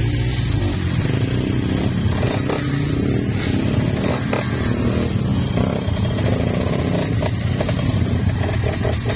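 Trail motorcycle engine running steadily, with a few light knocks scattered through.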